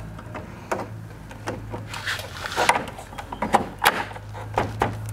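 Irregular clicks and knocks of an LED light bar and its mounting brackets being handled and pushed into position in a plastic truck grille, busiest about two and a half to four seconds in.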